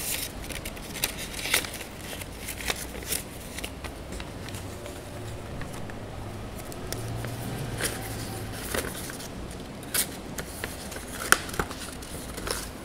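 Soft rustling with scattered light clicks and taps, a priest handling paper at the altar, likely the text of the aspiration he is about to read. A faint low hum comes in for a few seconds in the middle.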